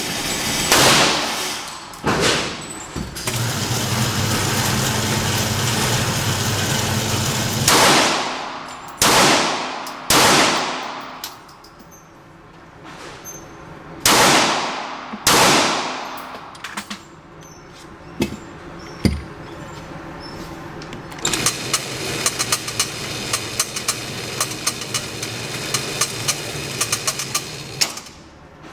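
9mm Glock 26 Gen 4 pistol shots with range echo: a pair early on, then a quick group of three, then two more. A low steady hum runs for a few seconds after the first pair. A dense mechanical rattle fills the last seven seconds or so.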